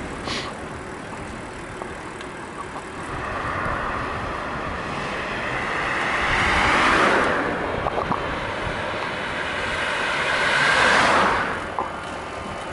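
Two cars passing close by one after the other, their tyre and engine noise swelling and fading about halfway through and again near the end, over a steady road rumble.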